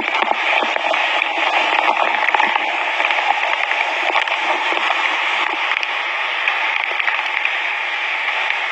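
Swollen, fast-running river in flood, a loud steady rush of water over rocks, with faint splashes as waders push through it. Heard through a phone microphone, so it sounds thin and band-limited.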